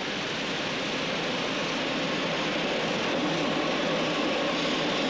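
Hot-strip rolling mill running: a steady hiss and rush of steam and water off red-hot steel slabs, with a faint machinery hum beneath.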